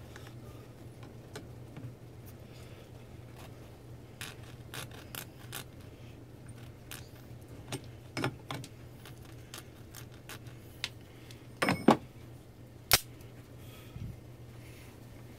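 Scattered light metallic clicks and taps from handling the wires and terminals of a starter motor on the bench. The loudest are a quick pair of clicks about three-quarters of the way through and a single sharp click just after.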